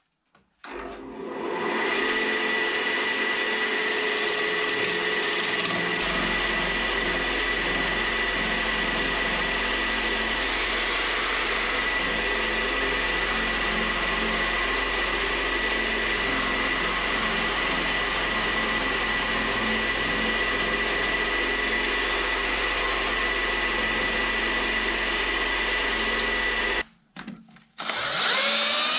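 Wood lathe running with a turning tool cutting a spinning log of old, dry chestnut down to a cylinder: a steady high whine over the rough noise of the cut, which stops suddenly near the end. Just after that, a drill spins up with a rising pitch, driving a screw into a lathe faceplate.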